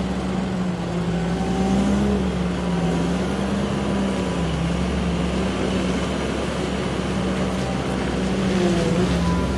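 Linde H160D heavy diesel forklift's engine idling steadily, a low hum that wavers slightly in pitch.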